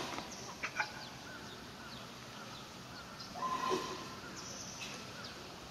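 Small birds chirping in short repeated calls, with two sharp clicks just under a second in and a louder, longer sound about three and a half seconds in.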